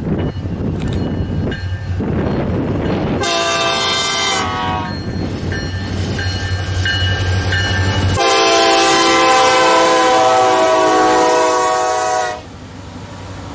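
Air horn of an approaching BNSF diesel locomotive sounding over the low rumble of the diesel engines: a blast about three seconds in, then a louder long blast of about four seconds that cuts off near the end. After it, the locomotives roll past.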